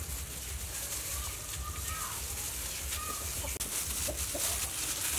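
Chickens clucking now and then in the background, short scattered calls over a steady low rumble.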